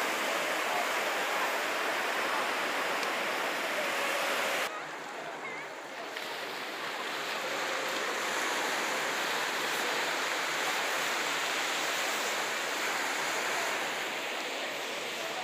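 Surf breaking and washing up a sandy beach: a steady hiss of waves, which drops suddenly about five seconds in and then builds back up.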